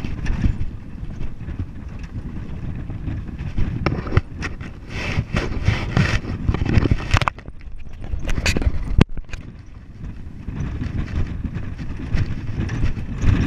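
Truck driving over a rough, rocky dirt track, heard from its open back: a low rumble with wind buffeting and repeated clattering knocks and rattles as it jolts. A single sharp knock about nine seconds in.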